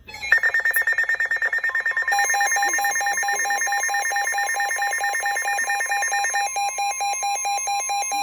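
NOAA Weather Radio's steady warning alarm tone, sounded to announce a severe thunderstorm warning, with a weather radio receiver's rapid alert beeps at two pitches over it. The higher beep stops about two-thirds of the way through.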